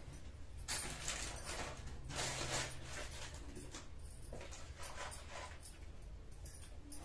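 Plastic packaging and cloth rustling in several short spells as clothes are handled and unwrapped.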